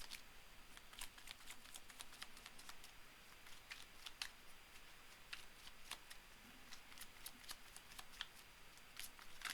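Faint, irregular clicks and flicks of tarot cards being handled and shuffled.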